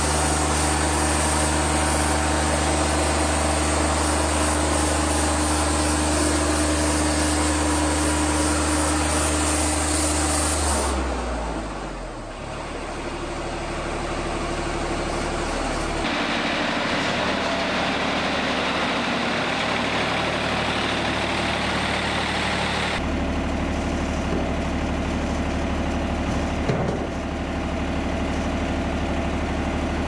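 Wood-Mizer LT40 Wide band sawmill running at full throttle while its band blade cuts through a white oak log, then the engine winds down in pitch about eleven seconds in. The engine keeps running at a lower speed after that, with a brief knock near the end.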